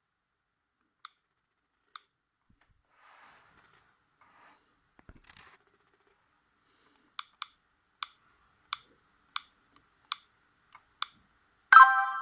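Sony Ericsson W580i key clicks: short electronic key-press beeps, first two single ones, then a run of about ten at a little under two a second, as the phone's menu is scrolled between ringtones. A brief, louder tone sounds just before the end.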